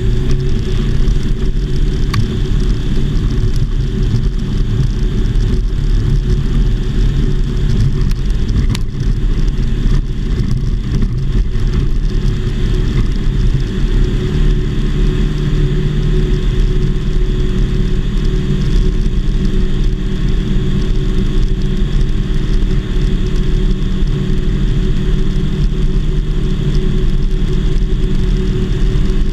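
Engine and propeller of a Volksplane VP-2 homebuilt light aircraft running steadily at power, heard from inside the cockpit during the takeoff run on skis and the climb-out.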